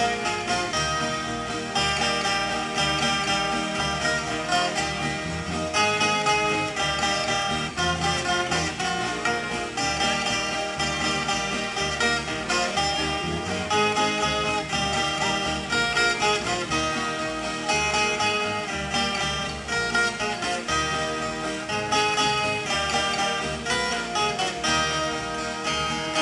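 A group of violas caipiras, the Brazilian ten-string folk guitars, played together in a continuous run of plucked notes and strummed chords.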